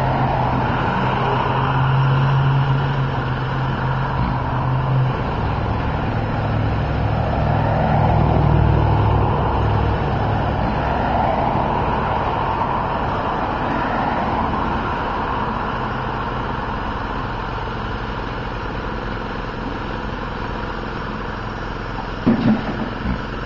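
Street traffic with a motor vehicle engine running close by; the engine's hum shifts pitch about five seconds in and fades out after about ten seconds. A few sharp knocks come near the end.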